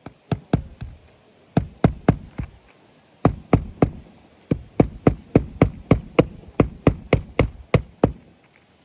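A hammer driving nails into a roof shingle: sharp knocks in short groups with brief pauses between them, then a long steady run of about four strikes a second that stops shortly before the end.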